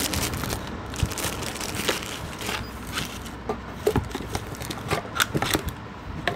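Packaging crinkling and rustling in irregular crackles and clicks as a blood pressure monitor's cuff is unwrapped by hand.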